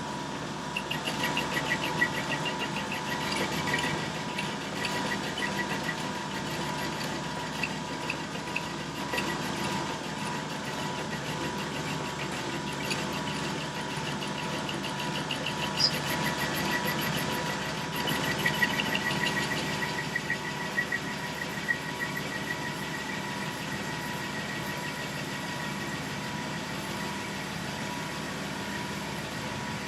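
1941 South Bend 13-inch lathe running with a steady hum while the cutting tool takes a cut across the shoulder of a sawmill blade guide roller, squaring off its rounded edge. The cut gives a fast, even ticking from about a second in, strongest at the start and again a little past the middle, then dies away, leaving only the lathe's hum near the end.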